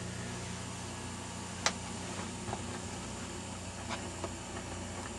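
Loudspeaker of a 1941 Rauland tube PA amplifier giving a low steady hum with a handful of sharp, irregular crackles and pops, the loudest about a second and a half in. The noise appears with the 6F6 output stage at its rated plate voltage, which the owner puts down to arcing or insulation breakdown in the interstage transformer.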